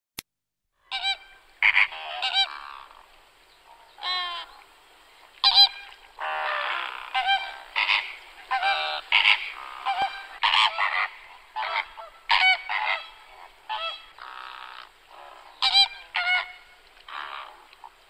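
A flock of flamingos calling: short, goose-like honks in quick succession, several birds overlapping at different pitches.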